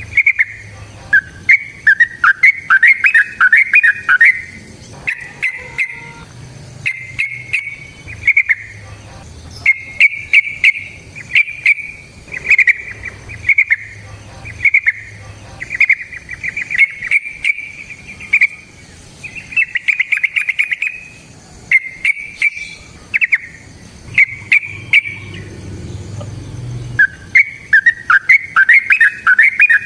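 Yellow-vented bulbul singing: a long series of short, bubbly whistled phrases, one after another with brief gaps, with quicker warbled runs near the start and end. Sharp clicks are scattered through the song.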